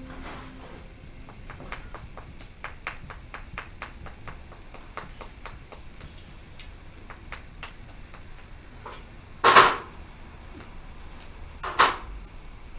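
Irregular light taps and clicks of masonry tools on stone and mortar as rubble stones are laid in a wall, with two louder, heavier knocks about three-quarters of the way through and near the end.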